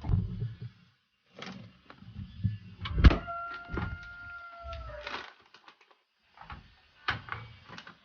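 Knocks and clatter of objects being handled, with one long steady squeak of about two seconds near the middle that dips slightly in pitch as it ends.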